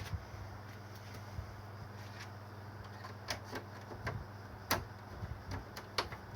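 Split air conditioner running with a steady low hum, and a handful of sharp clicks in the second half.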